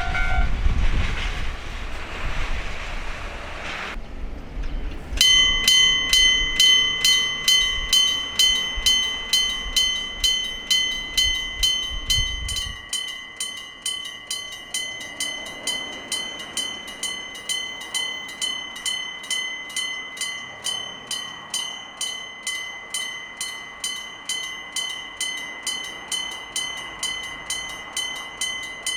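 A train rumbles past. After a break at about four seconds, a railroad crossing warning bell rings its rapid 'kan-kan' strikes, about two a second. A train rumbles under the bell until about halfway through, and then the bell rings on alone.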